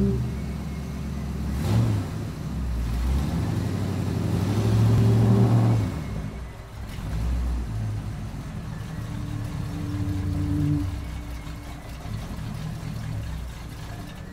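Car engine running low and steady, revving up in swells about two seconds in, from about four to six seconds, and again near ten seconds.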